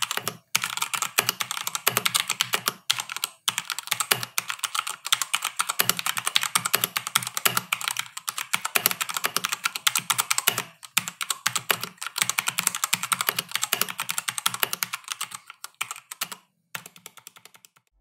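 Fast typing on a Keychron K2 V2 mechanical keyboard with red switches: a dense clatter of keystrokes with a few short pauses, thinning out and stopping near the end.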